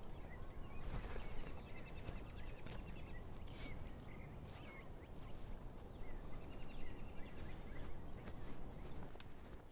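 Outdoor ambience of small birds chirping, with a rapid trill twice, over a low steady rumble. Now and then there is a short rustle or click of dry brush and gear being handled.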